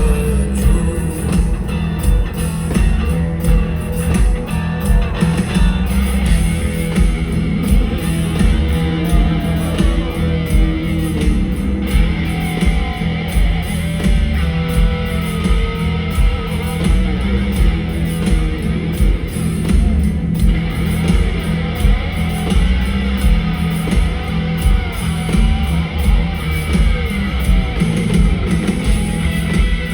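Rock band playing live in an arena, electric guitar prominent over a steady drum beat, with no vocal line picked out.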